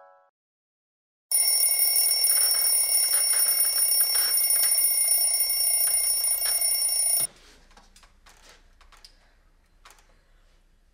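An alarm clock rings loudly and steadily for about six seconds, starting a second or so in, then cuts off suddenly; faint small clicks and rustles follow.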